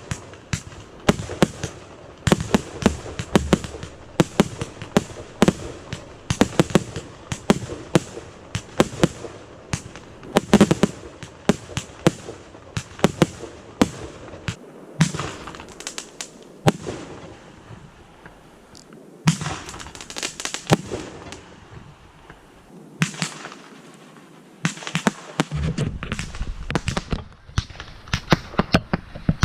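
Fireworks going off: a dense run of sharp bangs and crackling reports in quick succession. The firing thins out twice in the middle, then picks up again near the end.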